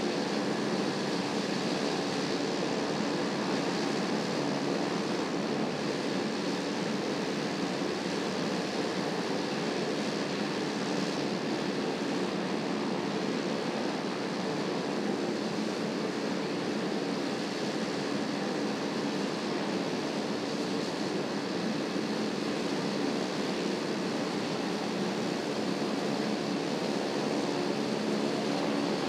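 Steady rushing roar of airfield background noise with a faint engine hum under it, unchanging throughout.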